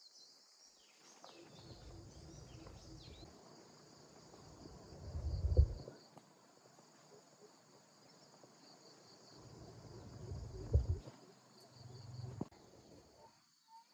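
Insects chirping steadily in a high, pulsing trill, with low rumbling thumps that rise and fall twice, loudest about five and a half seconds in and again near eleven seconds.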